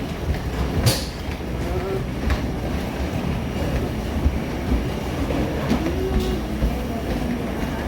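Steady low vehicle rumble with faint background voices, and a short click about a second in.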